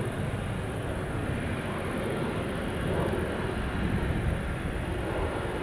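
Boeing 777-200ER's twin jet engines running at low taxi thrust as the airliner rolls along the taxiway: a steady jet noise, swelling slightly around three to four seconds in.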